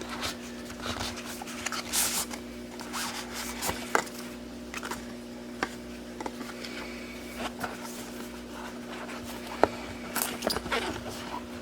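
A flashlight's retail packaging being opened and handled: irregular rustling, scraping and sharp clicks, one louder click near the end, over a steady low hum.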